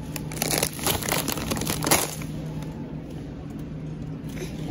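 Plastic bags of frozen shrimp crinkling as they are handled, for about the first two seconds, then only a steady low hum.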